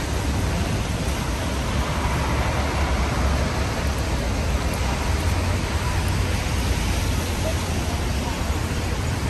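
Steady rain and city traffic on a Manhattan street: an even hiss of rain with a constant low rumble of passing vehicles.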